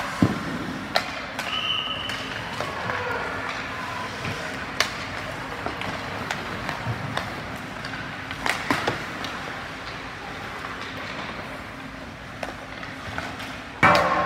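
Sounds of a youth team sports game: sharp knocks and impacts scattered over a steady background of activity, with faint distant voices and a brief high whistle-like tone near two seconds in. A loud knock comes just before the end.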